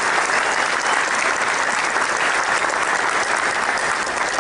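Audience applauding: a sustained round of clapping in a hall.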